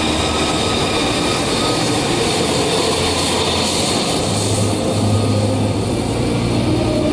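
F-35A's single Pratt & Whitney F135 turbofan running at taxi power as the jet rolls past, a steady jet noise with high whining tones. About four and a half seconds in, the high hiss thins out and a lower hum comes up.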